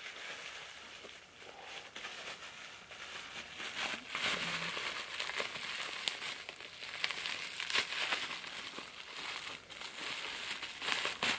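Plastic bubble wrap crinkling and crackling as it is handled and pulled off a baitcasting reel, a steady run of small sharp crackles.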